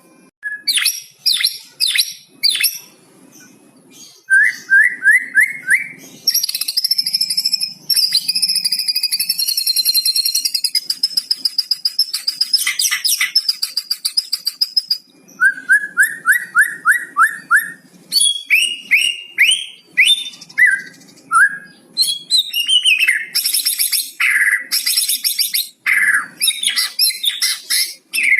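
White-rumped shama (murai batu) singing a long, varied song: rapid series of short repeated notes, a fast trill lasting several seconds, and high whistles and sweeping notes, with phrases learned from the cucak cungkok mixed in.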